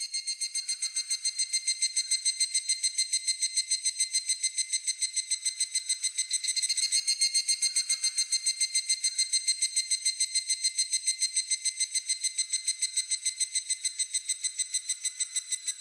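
Higurashi (evening cicada) calling: a long run of clear, ringing pulses, about five a second, held steady and fading just at the end.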